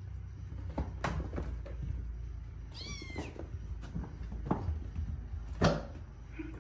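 A kitten gives one short, high-pitched meow about three seconds in, amid scattered soft thumps and scuffles of kittens playing and wrestling on a carpet. The loudest thump comes near the end.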